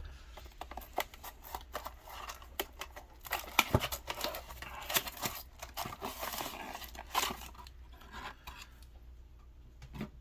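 Plastic wrapping and a small cardboard box of trading-card booster packs being torn open and handled: irregular crinkling, tearing and light clicks, thinning out near the end.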